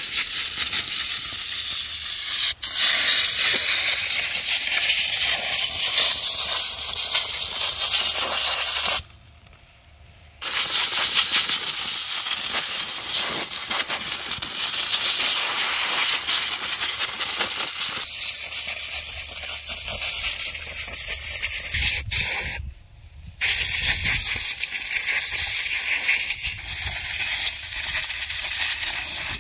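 Compressed air from an air compressor's blow gun hissing loudly, blowing soil off freshly dug ginger. The blast stops abruptly for about a second and a half about nine seconds in, and briefly again about 22 seconds in.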